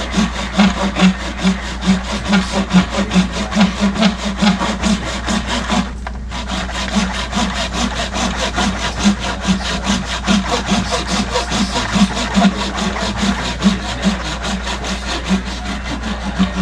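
Small hand saw cutting off the mounting bosses on a model locomotive, steady back-and-forth strokes at about three a second with a brief pause about six seconds in.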